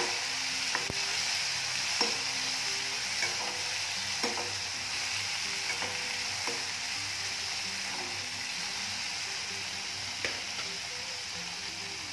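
Chopped onions sizzling in hot oil in a steel kadai, with a steady frying hiss. A spatula stirring them scrapes and knocks against the pan every second or two.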